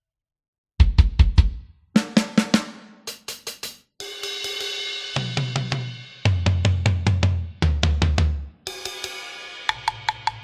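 Sampled drum kit from the Funkmasters EZX library for EZ Drummer 3 playing a run of short grooves and fills, starting about a second in: kick, snare, hi-hat and cymbal strikes. Each phrase lasts a second or two and stops abruptly before the next one begins.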